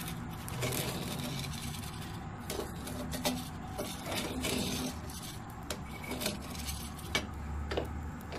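Perforated metal skimmer scraping and scooping through hot salt in a metal kadai, lifting out roasted black chickpeas: irregular scrapes and swishes of salt with sharp metal clicks against the pan.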